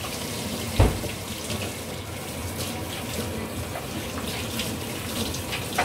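Water running steadily from a tap into a sink, with a single dull thump about a second in.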